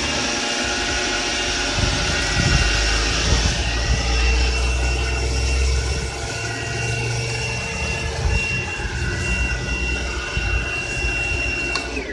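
Kärcher LB 850 battery-powered leaf blower running flat out with a steady high-pitched electric whine and the rush of its air, starting to wind down in pitch at the very end.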